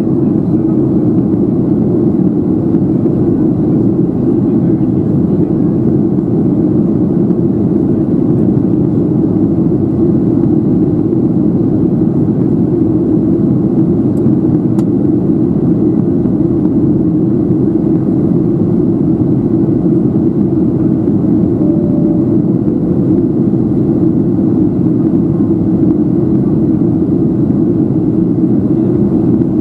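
Steady cabin noise of a Boeing 737-700 in flight, heard from a window seat by the wing: a constant low rumble of its CFM56 jet engines and the airflow over the fuselage as the airliner descends toward landing.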